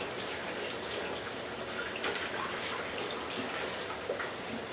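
Kitchen tap running steadily as a whole raw chicken is washed under it in the sink.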